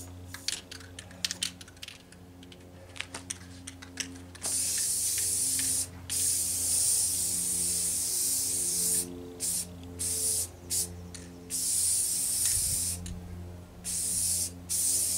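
Spray paint being sprayed from a can: for the first few seconds the can's mixing ball rattles in quick irregular clicks, then about four seconds in the paint sprays in a long hissing stretch that breaks into shorter bursts as the spraying goes on.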